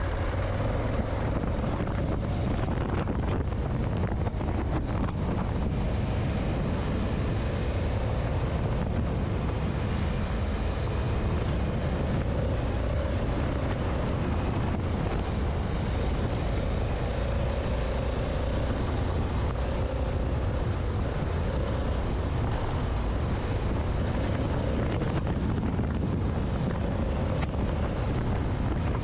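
Honda Africa Twin adventure motorcycle's engine running at a steady cruise along a dirt track, with wind noise on the microphone.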